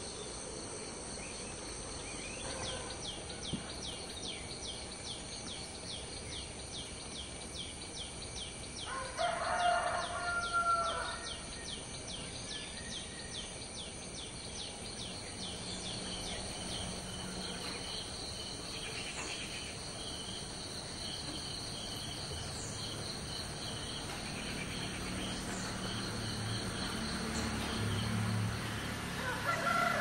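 Outdoor ambience of a steady, high-pitched insect drone, with a quick run of short repeated chirps, several a second, through the first third. A rooster crows once, about ten seconds in, and a low hum comes in during the second half.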